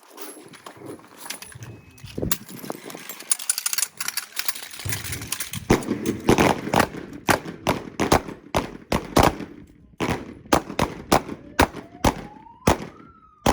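Handgun shots from a line of students firing together, a rapid, irregular volley of overlapping shots that thickens after the first couple of seconds. A faint whistle-like tone rises and falls near the end.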